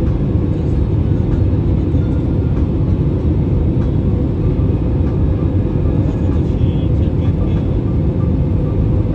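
Steady low rumble of engine and airflow noise inside the cabin of an Airbus A320 descending on approach.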